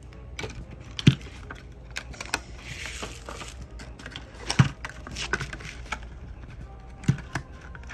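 Small gel polish bottles being handled and set down on a hard surface: a run of light clicks and clinks, with three heavier knocks about a second in, halfway through and near the end.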